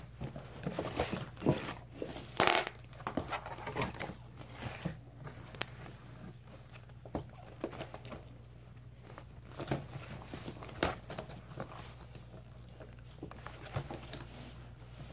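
Paper and folders being handled on a desk: pages and covers rustling and crinkling, with scattered taps and knocks as a spiral notebook and a ring binder are moved and opened. A louder knock comes about two and a half seconds in.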